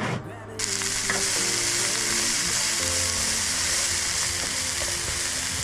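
Onions going into hot oil in a pan about half a second in, then sizzling steadily as they fry.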